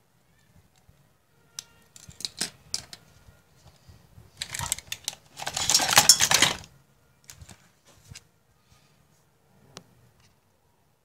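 Hand-handling noises of small plastic parts: a few sharp clicks, such as the temperature probe's plug being pushed into the thermostat board's socket, then about two seconds of rustling, and a few faint clicks near the end.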